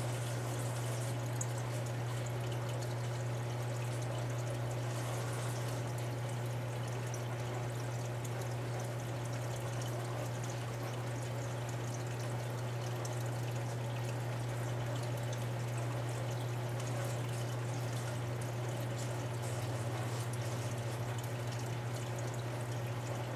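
Aquarium filter running: a steady pouring, trickling rush of water over a constant low hum.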